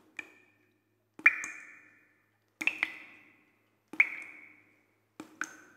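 A small spoon clinking against a glass bowl: about seven sharp taps, some in quick pairs, each ringing briefly.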